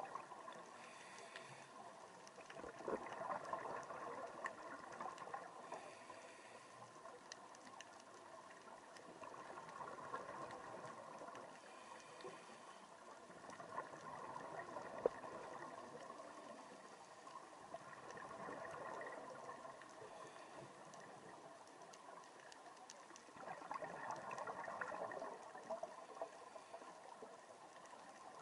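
Scuba diver's exhaled bubbles rising from the regulator, heard underwater, bubbling up in swells every five seconds or so, with one sharp click about halfway through.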